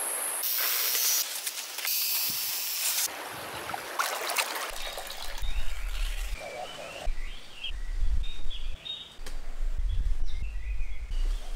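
Countryside ambience cut between shots: a bright rushing hiss like river water first, then small birds chirping again and again over a low rumble.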